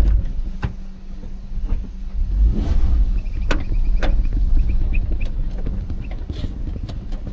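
Campervan engine running, with a low rumble that swells about two and a half seconds in, a steady hum, and scattered knocks and clicks.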